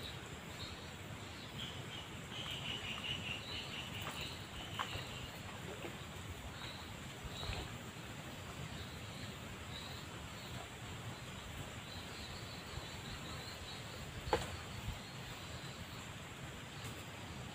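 Outdoor rural ambience: a steady background hiss with a steady high insect drone. A quick series of high chirps comes about two to five seconds in, and a few soft knocks fall later, the clearest about fourteen seconds in.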